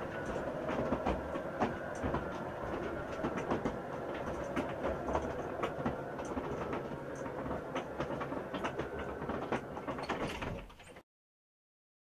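Motorised garage door running as it opens, a steady mechanical rumble with many rattling clicks, which stops abruptly near the end.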